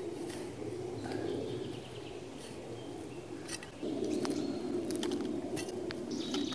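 A small shovel scraping and scattering soil over a freshly filled hole, with footsteps and twigs snapping on dry pine litter as short clicks and rustles. Birds chirp now and then, over a low steady drone that gets louder about four seconds in.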